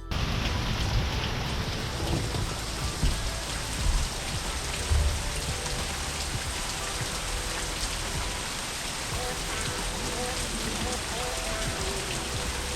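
Steady rain falling and pattering, with a few brief low thumps about three to five seconds in.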